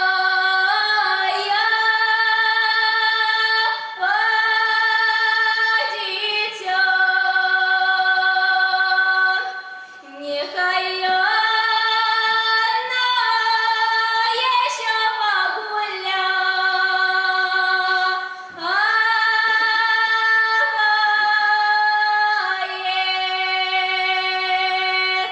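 A woman singing a Russian folk song solo and unaccompanied, in long held phrases, with short breaths between them about ten and eighteen seconds in.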